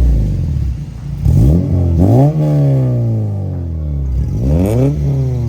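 Acura RSX Type S engine with a Skunk2 header and Invidia N1 exhaust, revving: the pitch climbs quickly and slides slowly back down, about three times.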